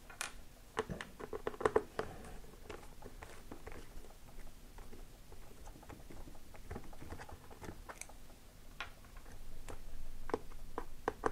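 Quiet, irregular small clicks, taps and scrapes of a Phillips screwdriver backing screws out of a black plastic tablet housing while hands handle the case; the clicks are densest in the first couple of seconds.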